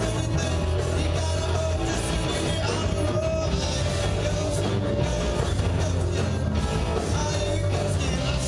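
Live rock band playing: amplified electric guitars over a drum kit, steady and loud throughout.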